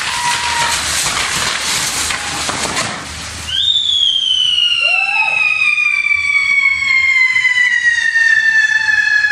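Fireworks bull (torito) burning: a dense hiss of spark fountains with fast crackling. About three and a half seconds in, a loud whistling firework starts a long, piercing whistle that slowly falls in pitch.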